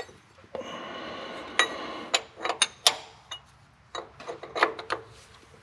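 Hand tools working on metal fuel-line fittings: a rasping scrape for about a second and a half, then a series of sharp metallic clicks and clinks.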